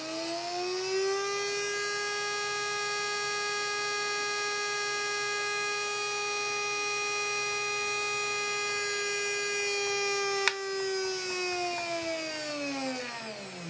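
Small electric motor on an ESU 53900 DCC decoder tester, driven by a DCC decoder, whining as it finishes spinning up and then running at a steady pitch. About ten and a half seconds in there is a click, and the whine falls gradually in pitch as the motor is brought back to speed step zero and slows under the decoder's momentum.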